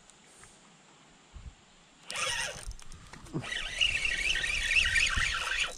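Spinning fishing reel buzzing in two bursts, about two seconds in and again from three and a half seconds in for about two seconds, while a hooked bass is being fought.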